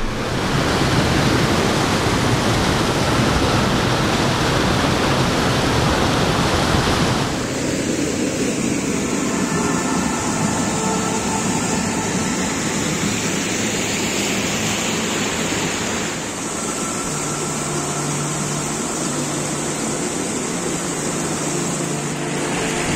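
Rushing water of a rocky mountain stream tumbling over boulders in small cascades, a steady hiss and splash. Its tone changes abruptly twice, about seven and about sixteen seconds in.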